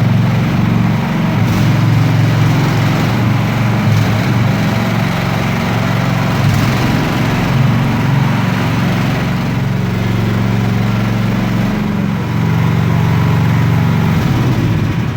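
Small mini excavator engine running steadily under a load while the machine is driven, its pitch dipping briefly about twelve seconds in.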